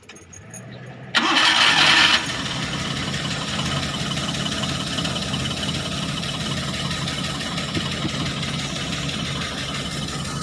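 Suzuki F6A three-cylinder engine being started: a short loud burst of cranking about a second in, as it catches, then the engine settles into a steady idle.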